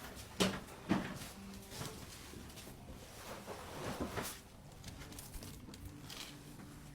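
Rustling and a couple of sharp knocks in the first second, then soft shuffling about four seconds in: a patient shifting onto their side on a chiropractic table.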